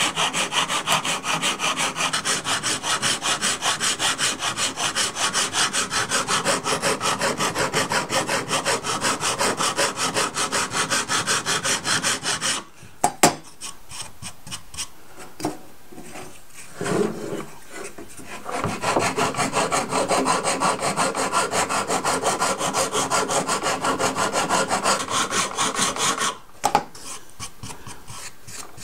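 Flat sanding block rubbed back and forth along the wooden stringers of a model boat hull in quick, even strokes, shaping them to follow the bulkheads. The strokes stop about halfway through for a few seconds, with a few knocks as the hull is handled and turned. They then resume and stop again near the end with a knock.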